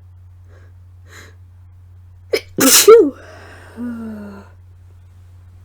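A woman's single sneeze from a head cold about two and a half seconds in: a quick sharp inhale, then one loud explosive burst, trailing off into a short vocal sound that falls in pitch.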